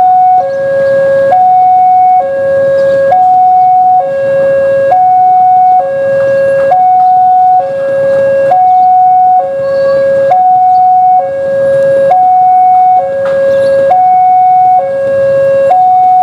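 Electronic railway level-crossing alarm sounding a steady two-tone hi-lo signal, a higher and a lower tone alternating about once a second each, warning of an approaching train. Underneath is the low rumble of the approaching diesel container train.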